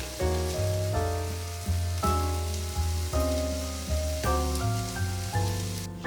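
Instrumental background music, with notes changing about every half second over a deep bass line, and a faint sizzle of food frying underneath.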